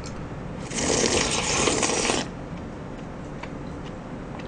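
Shaved ice (bingsu) eaten straight from a plastic cup held to the mouth: one noisy, crackly burst of about a second and a half, starting just under a second in.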